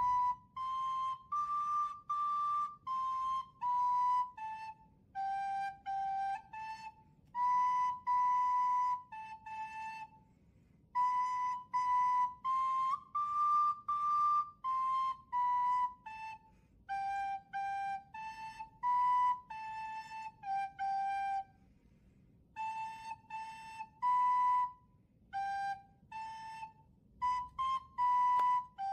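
Plastic soprano recorder played solo: a simple tune of separately tongued notes in a narrow, high range, in phrases with short breaks between them.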